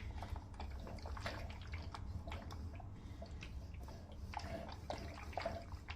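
Faint rubbing and small scattered clicks of an iron being worked over a laptop's case to heat it, over a low hum.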